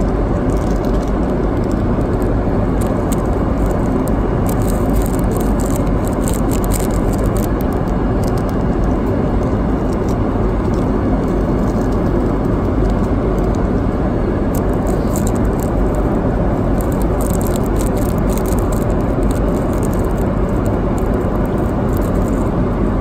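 Steady airliner cabin noise, with a small plastic packet crinkling in two spells as it is opened and shaken to scatter shredded nori.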